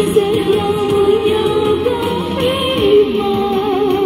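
A woman sings a Cantonese pop song into a handheld microphone, amplified through a small portable speaker over recorded backing music, holding long notes.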